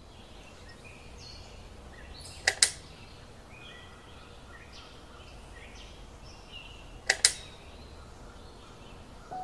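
Birds chirping with short scattered calls over a steady background hum, broken twice by a sharp double click, about two and a half seconds in and again about seven seconds in.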